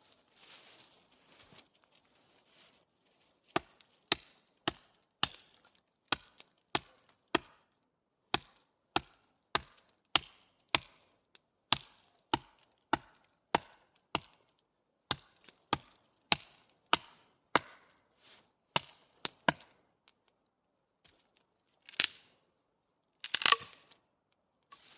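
Steady chopping with a blade on wood: sharp strikes about every half second, kept up for some sixteen seconds. After a pause comes a louder single knock, then a short clatter near the end.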